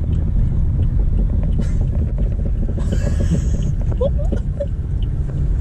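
Car driving on a wet, flooded road, heard from inside the cabin: a steady low rumble of engine and tyres, with a brief hiss of tyres through water about three seconds in.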